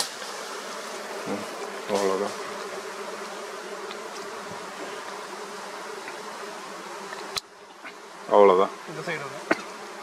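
Steady humming buzz of a wild colony of dwarf honeybees clustered on their exposed single comb. Two short, louder calls break in, about two seconds in and near the end, the second the loudest sound.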